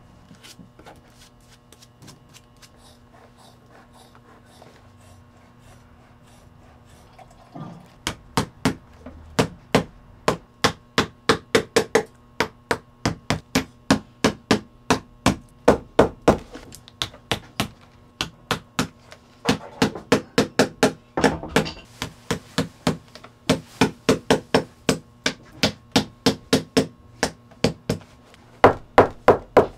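Shoemaker's hammer beating leather in hand boot-making: after several seconds of only faint light taps, fast runs of sharp blows at about two to three a second, broken by short pauses.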